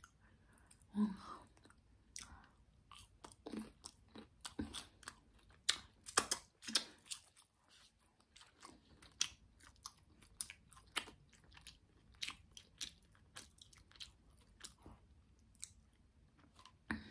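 Close-up chewing of a fried egg roll: crisp crunches and wet mouth clicks at irregular spacing, densest about six to seven seconds in.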